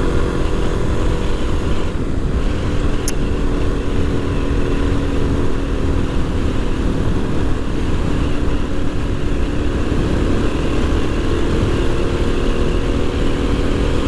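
2019 Suzuki DR-Z400's single-cylinder four-stroke engine running steadily at cruising speed, heard through a helmet-mounted lavalier mic under heavy wind rush.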